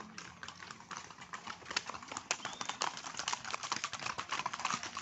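Hoofbeats of several ridden horses on a packed dirt road: an irregular run of clops that grows denser and louder after the first second or so.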